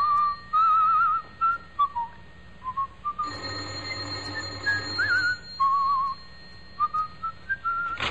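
A man whistling a tune in short, wavering notes, with an electric doorbell buzzing for about two seconds midway.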